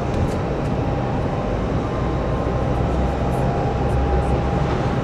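Airliner jet engines running: a loud, steady rumble with a constant thin whine above it.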